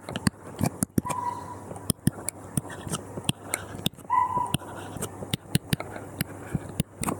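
A dog whimpering: two short high whines about three seconds apart, over a run of small clicks.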